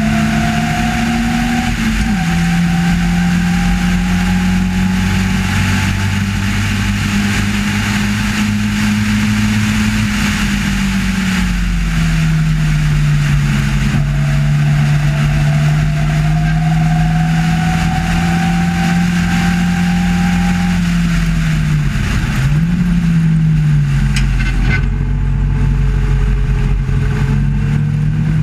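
Race car engine heard onboard under hard acceleration, with wind and road noise. The engine note rises with the revs and drops at gear changes: a sharp drop about two seconds in, an easing off around ten seconds, then a quick dip and blip about twenty-two seconds in before pulling again.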